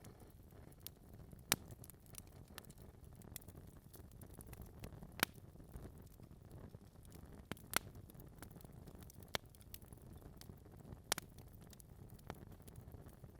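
Wood fire in a fireplace crackling: a steady low rush of flame with scattered small ticks and four louder, sharp pops spread through.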